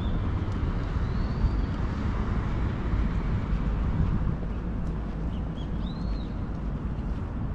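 Outdoor street ambience: a steady low rumble with a few short, high bird chirps scattered through, the clearest around a second in and around five to six seconds in.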